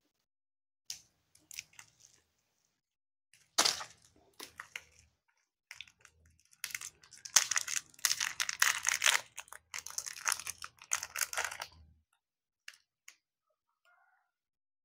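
Clear plastic snack packet being crinkled and torn open by hand, crackling in irregular bursts that grow denser and louder through the middle and stop near the end, followed by two small clicks.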